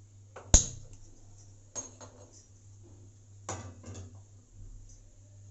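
A sharp click about half a second in as a hand-held spark gas lighter is fired at the stove burner, then metal clatters, the largest about three and a half seconds in, as a steel kadhai is set down on the burner's pan support.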